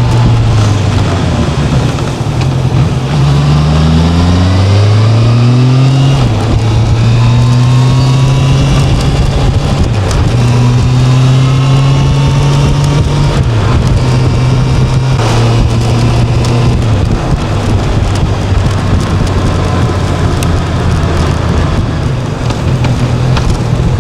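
Honda CB650F's inline-four engine running under way: it pulls up through the revs for a few seconds, drops at a gear change about six seconds in, then holds a steady cruise with a couple more small drops in pitch, over a steady rush of noise.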